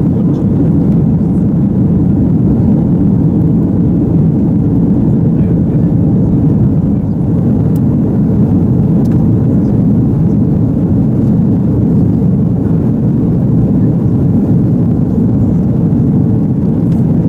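Steady, loud engine and airflow noise heard inside the passenger cabin of an Airbus A330-300 during its climb after takeoff.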